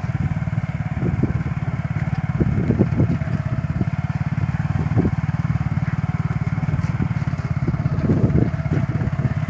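Honda motorcycle engine of a bike-converted mini tractor running steadily under load as it drags a tine cultivator through the soil.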